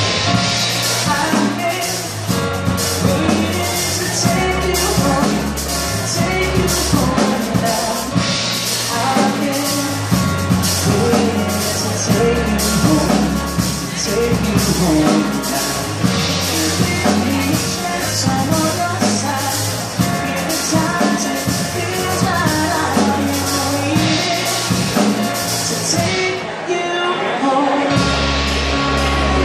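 Live band playing a rock-pop song with keyboards and drum kit: steady cymbal and drum hits over keyboard chords and deep bass notes. The drums drop out about three seconds before the end, leaving keyboards and bass.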